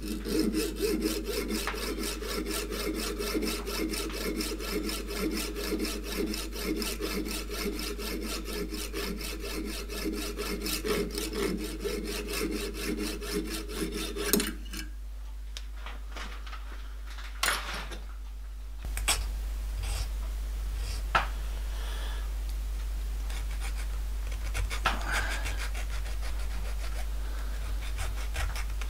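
Hacksaw cutting through a small brass rod held in a lathe chuck, in rapid, even strokes that stop about halfway through. After that only a few light clicks and faint scraping.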